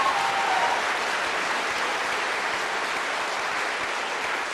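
Audience applauding steadily, tapering off slightly toward the end, with a brief shout from the crowd at the very start.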